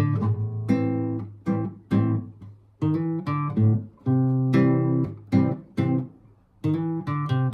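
Acoustic guitar strummed in chords, each strum ringing out, with brief pauses between phrases: an instrumental intro before the singing starts.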